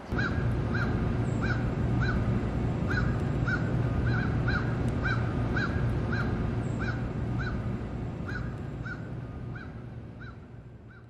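A bird calling over and over with short calls, about two a second, over a steady low outdoor rumble; the whole sound starts abruptly and fades out near the end.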